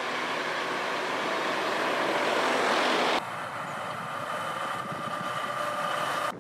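Uragan multiple rocket launcher system: a loud steady roar that builds for about three seconds and then cuts off abruptly. A different steady roar with a high whine running through it follows and also cuts off abruptly.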